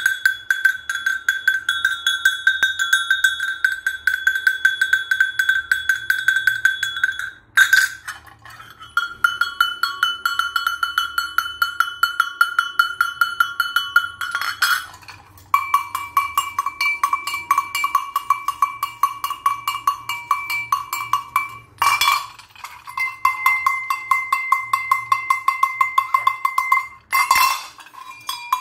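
Sheet-metal livestock bells with brass clappers, shaken by hand one after another. Each bell rings in a quick, even clanking for several seconds, and each one is a little lower in pitch than the last.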